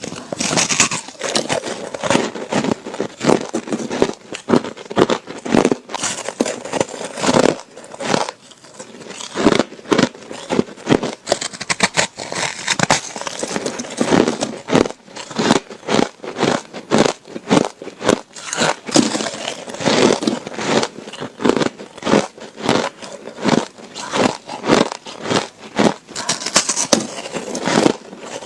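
Ice being bitten and crunched between the teeth close to the microphone: a long run of sharp, irregular crunches and crackles, about one or two a second, with a short pause partway through.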